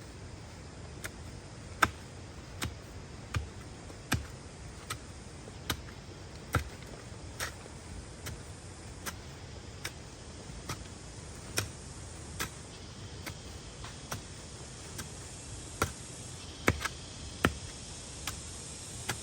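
A steady series of sharp knocks or chops, about one every 0.8 seconds, over a faint hiss.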